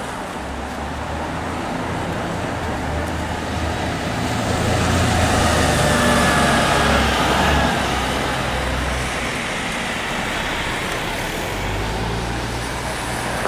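Road traffic: vehicle engines running with a low hum and steady road noise, swelling for a few seconds in the middle as a vehicle passes close.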